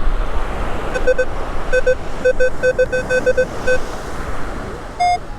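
Metal detector beeping on a target: short identical tones in pairs, then a quick string of about four a second, then one higher-pitched beep near the end. Wind and surf hiss run underneath.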